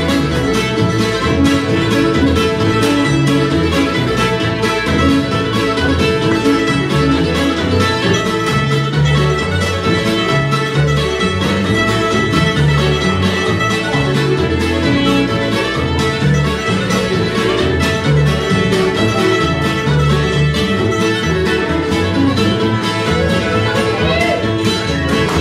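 Old-time string band playing live: fiddle, mandolin, acoustic guitar and upright bass, with a steady bass pulse under the fiddle and guitar.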